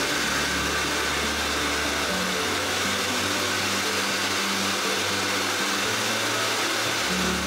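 High-velocity dog grooming dryer blowing steadily: an even rushing of air.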